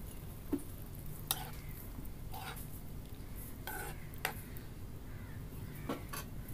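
A steel spoon stirring papaya in water in an iron wok, giving a few short scrapes and knocks about a second apart, then clinking twice near the end as it is laid down on a steel tray.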